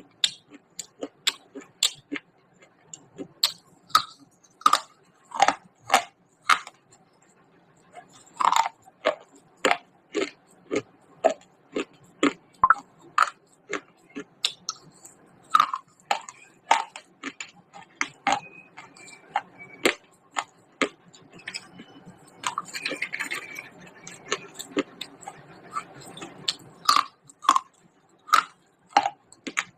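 A person crunching and chewing pieces of fired clay pot close to the microphone, with many sharp crunches in an irregular, roughly half-second rhythm. A grittier grinding chew comes about two thirds of the way in.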